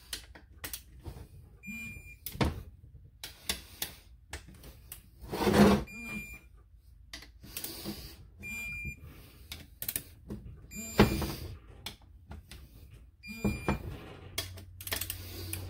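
Digital torque wrench giving about four short beeps, each signalling that a cylinder head bolt has reached its 12 ft-lb first-pass torque. Between the beeps come the ratcheting clicks and knocks of the wrench and socket moving from bolt to bolt, with two louder knocks.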